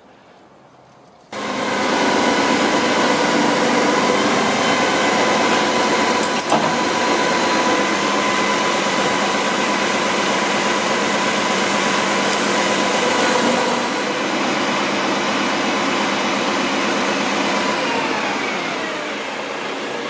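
Truck engine running at raised revs with a crane's hydraulics whining: a steady machine noise with several held tones that starts suddenly just over a second in. There is a short knock about six seconds in, and near the end the tones fall in pitch as it winds down.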